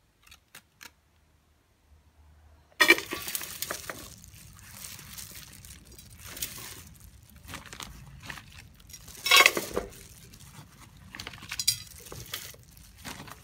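Potting soil being scooped by a gloved hand into two metal tins: a crunching, rustling scrape of soil with irregular louder knocks against the tin, the loudest about three seconds in and again past the middle. Before it, a few faint clicks in near silence.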